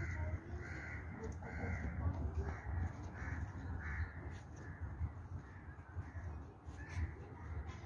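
Crows cawing, a run of short caws about one a second that thins out after the first few seconds, over a low rumble of wind on the microphone.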